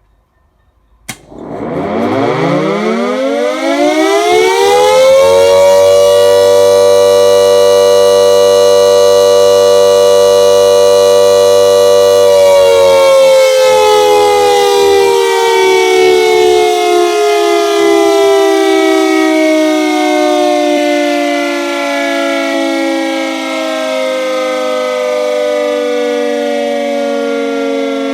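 Secomak GP8 air raid siren: a click about a second in, then the siren winds up to a loud steady wail over about four seconds and holds it. From about twelve seconds in it slowly winds down, its pitch falling.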